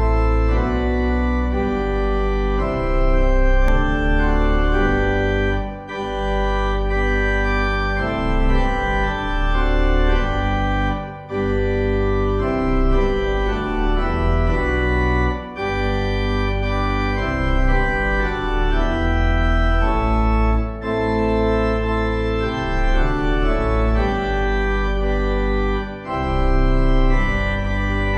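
Organ playing slow, held chords over a deep bass line, the music breaking off briefly between phrases every five seconds or so.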